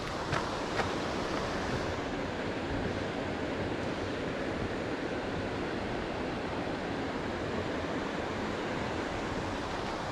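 Steady rush of whitewater from a mountain creek's falls, a dense even noise that holds level, with a couple of faint clicks near the start.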